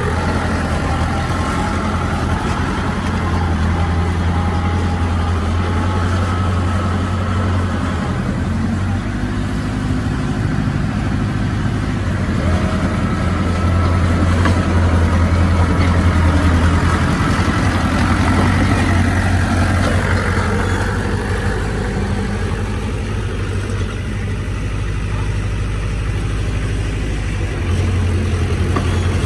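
Diesel engine of heavy earthmoving machinery running steadily with a deep hum, its load swelling and easing, loudest around the middle.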